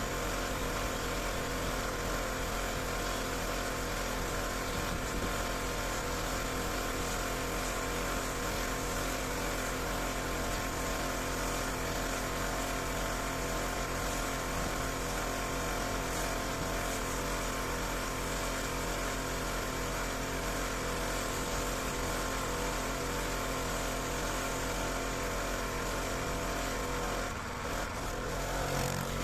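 Pressure washer running steadily at an even, constant engine note, with a hiss from the spray; the sound shifts briefly shortly before the end.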